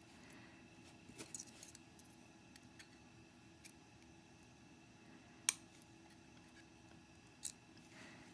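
Small metal lock parts being handled: light clicks and scrapes as a slider is worked out of a disassembled euro cylinder, with one sharp metallic click about halfway through.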